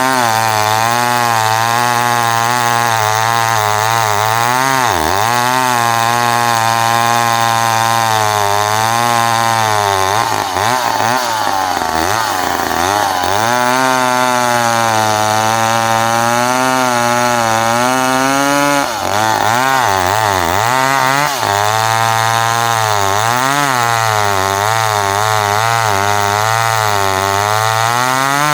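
McCulloch 10-10A two-stroke chainsaw running at high speed while cutting dry white oak. Its pitch keeps dropping and recovering as the chain loads up in the wood, with deeper dips several times.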